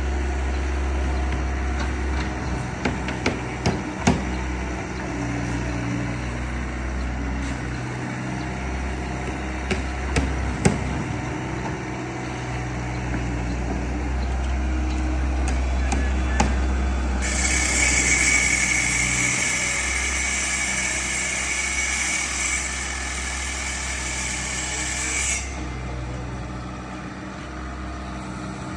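A large engine running steadily with a low rumble, with scattered sharp knocks and clacks. Past the middle, a loud hiss starts suddenly, lasts about eight seconds, and cuts off.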